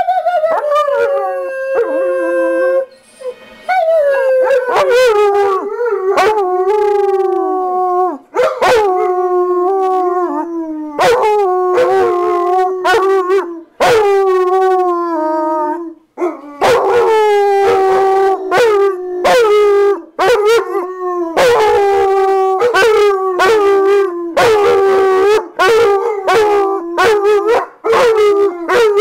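German shepherds howling in an excited welcome-home greeting: a long run of repeated howls, each dropping in pitch at the start and then held, with short yips between them.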